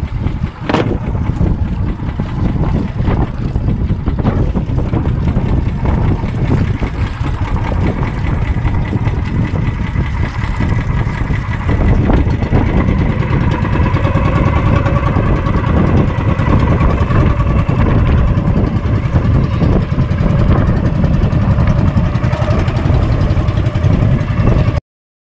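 Outrigger boat's engine running steadily; about twelve seconds in it gets louder and a steady whine comes up over the low engine noise. A single knock sounds about a second in, and the sound cuts off suddenly near the end.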